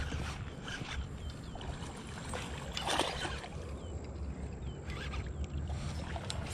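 Water splashing as a small bass is reeled to the bank and pulled from the water, in short bursts, the strongest about three seconds in, over a low rumble of wind on the microphone.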